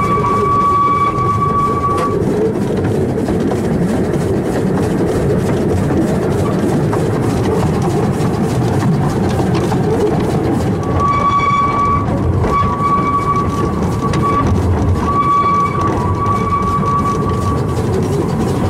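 Bagnall 2-4-0 tank engine Sea Lion running on narrow-gauge track, a steady loud rumble of the moving locomotive and train. A steady high whistle sounds for the first couple of seconds, then three more times between about eleven and seventeen seconds in, the last the longest.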